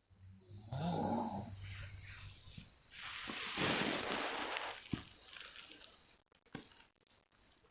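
Snoring: a rattling snore about a second in, then a long, noisy breath about three seconds in, and a few faint snuffles near the end.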